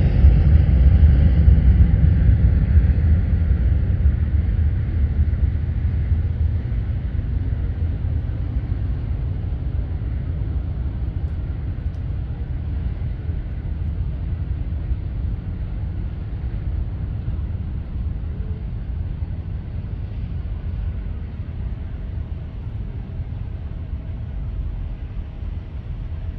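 Jet airliner's engine roar fading away: the higher hiss drops out in the first couple of seconds, leaving a long low rumble that slowly dies down.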